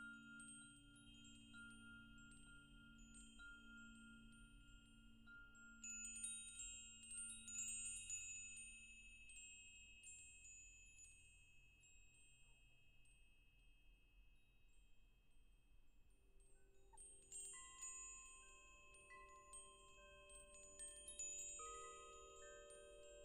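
Wind chimes ringing irregularly, several tones overlapping and hanging on. Flurries of strikes come about six seconds in and again from about seventeen seconds on, with sparser ringing between.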